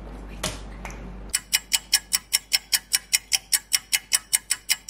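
Clock ticking sound effect, sped up to about five even ticks a second, starting a little over a second in: a waiting or time-passing cue while instant noodles steep. A soft click comes just before the ticking starts.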